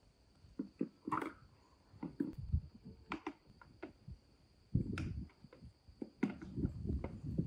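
Irregular light knocks, clicks and low thumps of a hanging plastic swing seat and its ropes as a baby monkey clambers over it, busiest in the second half.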